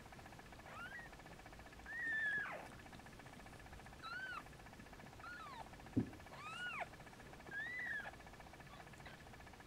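Newborn kitten mewing: about six short, high-pitched cries that rise and fall in pitch, spread over several seconds.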